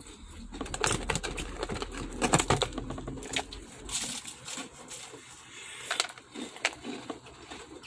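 Irregular crunches and clicks of a crispy fried chicken wing being bitten and chewed close to the microphone.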